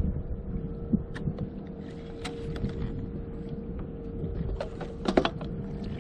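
Motorized kayak's motor running with a steady hum, under low wind and water rumble. Scattered clicks and knocks sound over it, the loudest a quick cluster about five seconds in.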